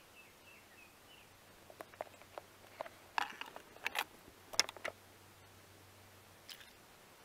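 Handling noise of a small camera: a quick cluster of clicks, taps and scrapes as fingers grip and move it, loudest between about two and five seconds in, with one more faint click near the end.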